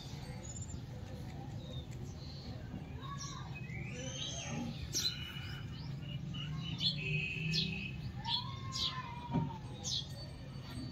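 Birds chirping: many short, high chirps and quick gliding calls, growing busier a few seconds in, over a steady low hum.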